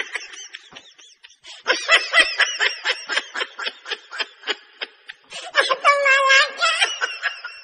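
High-pitched snickering laughter: a fast run of short giggles, then a longer drawn-out laughing note about five and a half seconds in.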